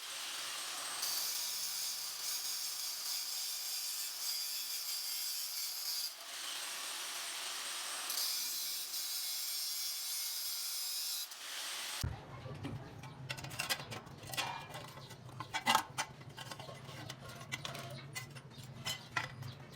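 Steady scraping of a hand tool cutting the metal of a motorbike silencer, in long strokes broken by short pauses. About twelve seconds in it changes abruptly to a low hum with scattered metallic clinks.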